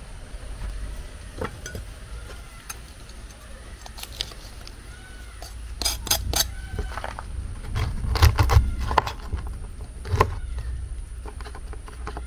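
Clinks and knocks of dishes and utensils being handled, in clusters about six and eight seconds in, over a low steady rumble.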